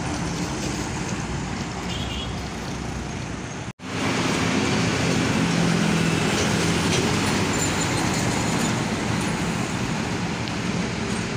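Road traffic with the diesel engines of container trucks running as they pull past, and tyre noise from other vehicles. The sound cuts out abruptly a little under four seconds in and comes back louder, with a steady low engine hum.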